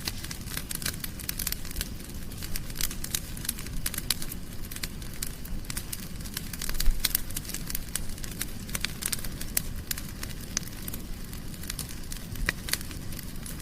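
Wood fire crackling, with irregular sharp pops and snaps over a low rumble of flames; a brief louder low rush about seven seconds in.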